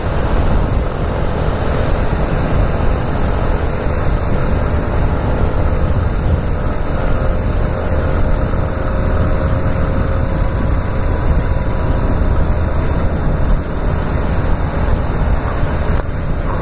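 Yamaha XTZ 250 motorcycle riding steadily at road speed on a rain-wet road: steady wind rush on the microphone over the running single-cylinder engine and tyre hiss.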